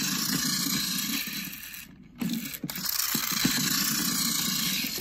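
Battery-powered TOMY James toy engine's electric motor and gearbox running. The sound is not very normal, and the owner suspects something is wrong inside. It drops away briefly about two seconds in, then starts again.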